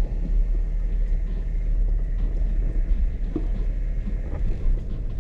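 Jeep engine running at low speed, a steady low drone with a few faint ticks over it.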